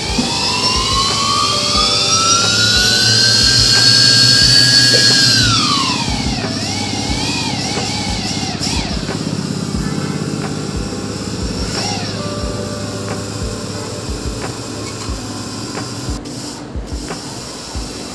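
Brushless quadcopter motors (A2212 1000kV on 30A ESCs) spinning up under throttle: a whine that climbs steadily in pitch for about five seconds, drops sharply, then wavers up and down before settling low. Background music with a steady beat runs underneath.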